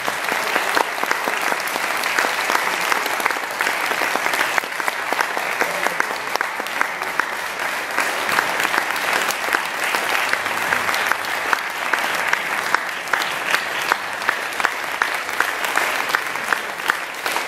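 Audience applauding steadily at a curtain call, with one person's loud claps close by standing out at about two or three a second in the second half.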